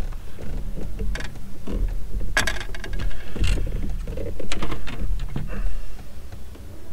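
Hands handling a soft-plastic bait and hook: scattered small clicks and rustles over a steady low rumble.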